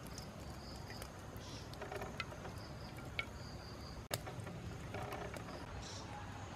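Insects chirping in short, high-pitched trills that recur every second or so, with a few faint sharp clicks in between.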